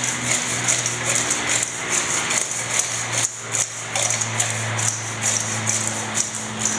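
Crispy baked chicken bites coated in buffalo sauce, tossed by shaking a stainless steel bowl: a quick, irregular clatter of the pieces tumbling against the metal.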